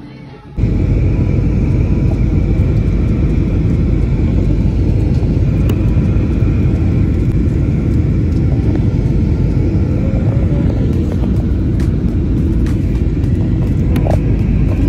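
Jet airliner cabin noise heard at a window seat: the engines and airflow make a loud, steady rumble with a faint high hum over it. It starts suddenly about half a second in.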